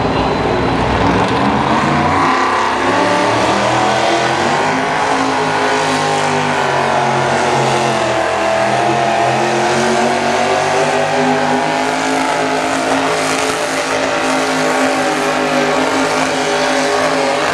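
V-8 engine of a Minneapolis-Moline pulling tractor at full throttle, hauling a weight-transfer sled. The pitch climbs over the first couple of seconds, then holds high and wavers slightly for the rest of the pull.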